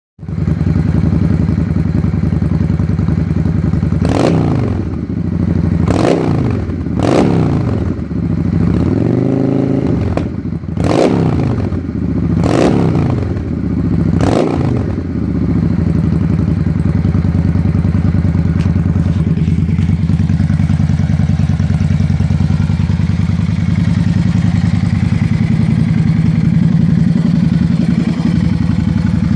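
Yamaha V Star 650's air-cooled V-twin running through a Vance & Hines aftermarket exhaust. It idles, is blipped through about seven quick revs between roughly 4 and 15 seconds in (one slower, briefly held), then settles back to a steady idle.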